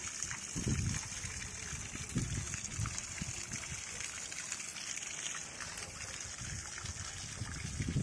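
A steady rushing hiss with an irregular low rumble underneath.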